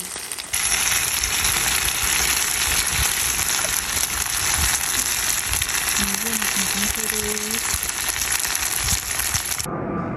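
Food frying in a hot pan, a loud steady sizzle that starts suddenly about half a second in and cuts off abruptly near the end.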